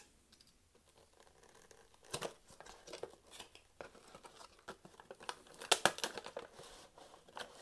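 Clear tape and plastic film being picked at and peeled off a small cardboard product box: irregular crinkling and tearing crackles, loudest in a cluster about six seconds in.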